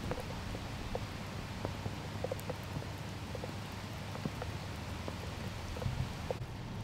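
Steady rain falling, with many close drops ticking irregularly against a surface, over a low steady hum.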